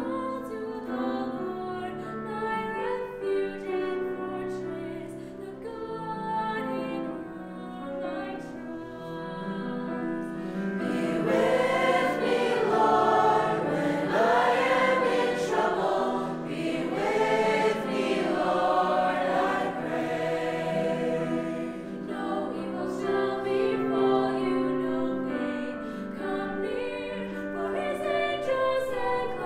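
Youth choir singing a responsorial psalm, swelling to a louder, fuller passage about a third of the way in and easing back after about two-thirds.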